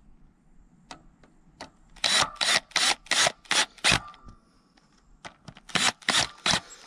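Cordless drill driving screws into a pump's wiring cover in short trigger bursts: a quick run of about seven bursts a couple of seconds in, then four more near the end.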